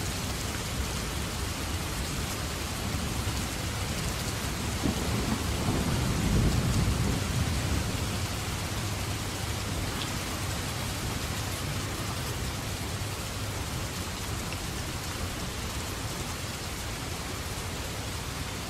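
Steady rain falling, with a low rumble that swells and fades about five to eight seconds in.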